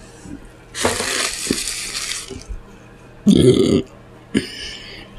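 A woman's mouth sounds while eating: a breathy rushing noise for over a second, then a short, loud burp about three seconds in, followed by a briefer noisy mouth sound.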